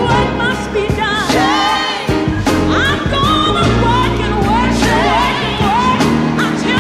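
Gospel music: a lead singer with choir and band, the voice sliding and bending through wordless runs over a steady beat.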